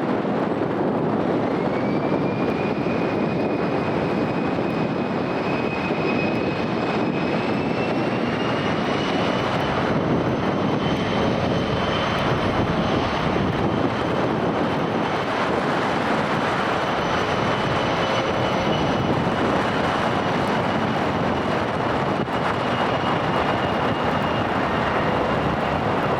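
Jet airliner's engines spooling up: a high turbine whine rises in two steps over the first eight seconds, then holds steady over an even rushing noise.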